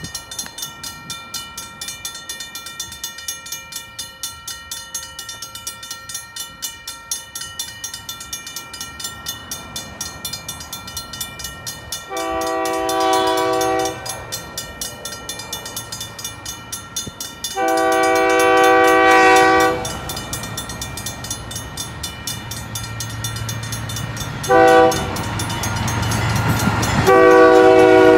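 Railroad crossing bells ringing in a rapid steady clang while the approaching Napa Valley Wine Train's locomotive sounds its multi-chime horn in the grade-crossing signal: two long blasts, a short one, then a long one that is still sounding at the end. A low locomotive rumble grows under the last two blasts as the train nears.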